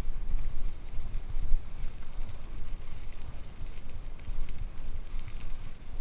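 Mountain bike rolling over a dirt and gravel road, with low rumble from the tyres and wind on the microphone. From about two seconds in, faint quick ticking of the rear hub's freehub ratchet comes through.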